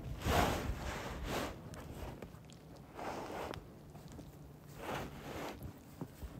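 Heavy canvas tarp rustling in several separate swishes as it is pulled and tucked into place, with boots crunching in snow.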